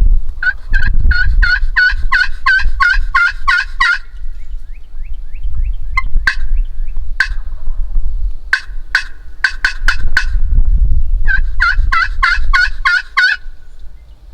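Turkey yelping: a run of quick, evenly spaced yelps at about five a second for over three seconds, then a few sharp single notes spaced apart, then another run of yelps near the end. A low rumble of wind on the microphone runs underneath.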